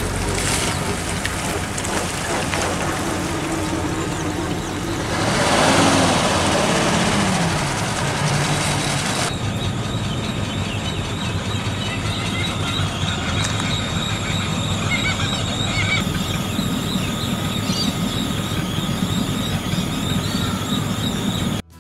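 Vintage cars' engines running at low speed, with one car passing close about five seconds in, its tyres hissing on the wet road.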